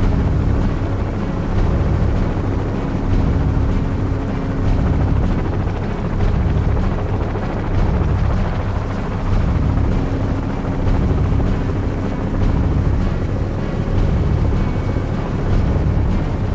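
Light helicopter running with its rotor turning, heard from a camera mounted on the outside of the aircraft: a steady low engine-and-rotor noise that swells and fades about every second and a half, with a steady hum that comes and goes.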